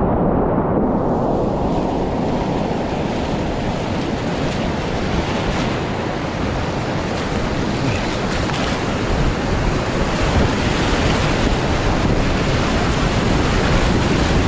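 Whitewater rapids rushing and churning around an inflatable kayak, heard up close from the boat as a loud, steady roar. Muffled for about the first second, then clearing to the full hiss of the water.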